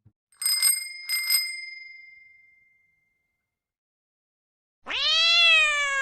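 A bicycle bell rung twice in quick succession, its ring dying away over about a second. After a pause, a cat gives one long meow near the end, rising then falling in pitch.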